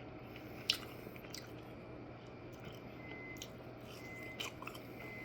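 Faint chewing of a mouthful of honey-soaked French toast, with a few soft clicks.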